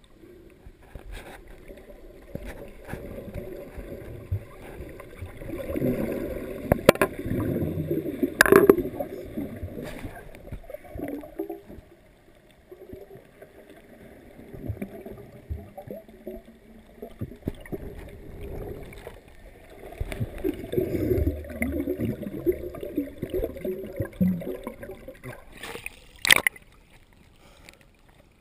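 Muffled underwater water movement and gurgling heard through a GoPro dive housing, swelling louder twice, with a few sharp clicks.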